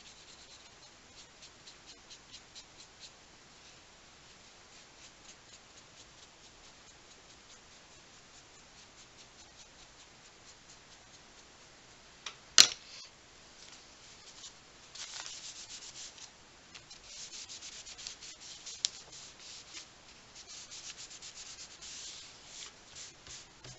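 Damp baby wipe and watercolour pencil rubbing and scribbling on thin journal paper: faint, even strokes at first, then quicker, scratchier bursts in the second half. One sharp click comes just past the middle.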